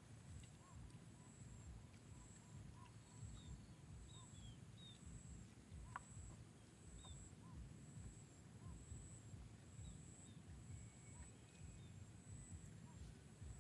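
Quiet outdoor nature ambience: a high, even chirping that pulses a little more than once a second, with faint short bird chirps scattered through it and a low rumble underneath. A single faint click about six seconds in.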